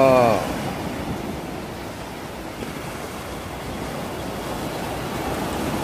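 Small surf waves washing in over a shallow sandy beach, a steady rushing noise, with wind on the microphone.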